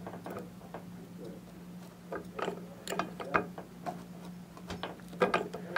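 Irregular clicks and ticks from a Dayton one-ton arbor press as its rack-and-pinion ram is worked down onto a bent scissor blade to press the bend out, over a steady faint low hum.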